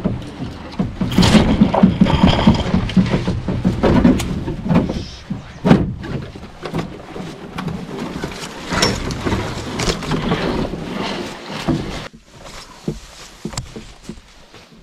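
Canoe being paddled: irregular sloshing of water with sharp knocks in among it, loud for most of the stretch and dropping off suddenly about twelve seconds in.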